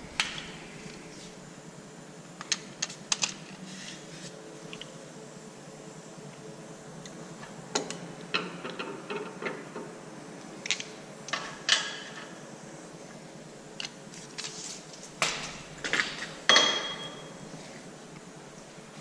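Scattered clicks and metallic clinks of hand tools and parts being handled under a car, with a few short clusters of louder clacks about two-thirds of the way through and near the end.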